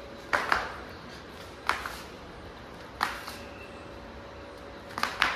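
Six short sharp taps or slaps: a quick pair near the start, single ones at about 1.7 and 3 seconds, and another quick pair near the end.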